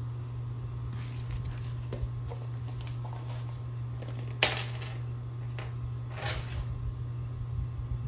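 Tools and bicycle parts being handled during work on the bike: scattered knocks and clicks, the sharpest about four seconds in, over a steady low hum.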